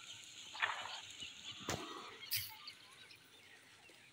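Faint outdoor ambience with a few distant bird calls and soft knocks.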